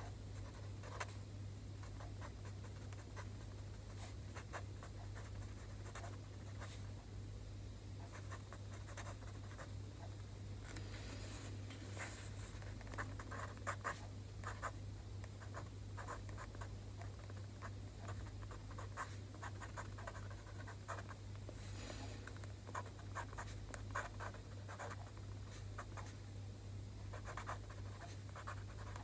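Pen writing Chinese characters on a sheet of paper: quick, irregular scratches and taps of the pen tip as each stroke is made, over a steady low hum.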